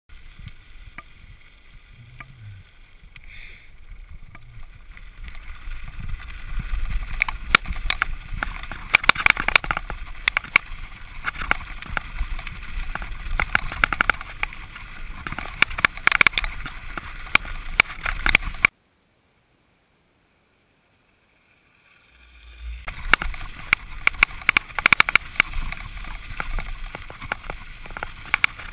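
Mountain bike ridden fast down a rough dirt trail: tyres on dirt and stones and the bike rattling and knocking over bumps, with wind rumbling on the microphone, building up over the first few seconds. The sound cuts out completely for about three seconds past the middle, then comes back.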